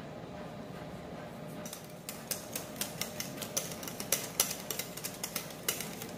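Wire whisk beating mayonnaise in a bowl, its wires clicking against the bowl's side in a quick, uneven rhythm from about two seconds in. This is the final beating that brings the mayonnaise to a thick emulsion.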